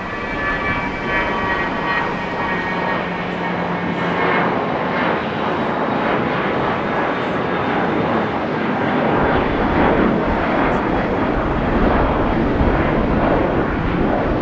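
Jet airliner engines: a high whine fades over the first few seconds while a broad, steady jet roar builds and grows louder toward the end.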